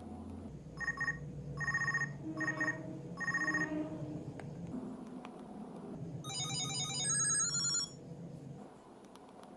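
Ringtones of an au SH006 mobile phone: four short bursts of the same electronic beeping tone at an even pace, then, about six seconds in, a brief, faster, busier chiming melody.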